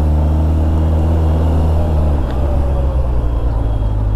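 Honda Hornet 600's inline-four engine idling with a low, steady hum, then pulling away about halfway through as the motorcycle moves off from a crossing.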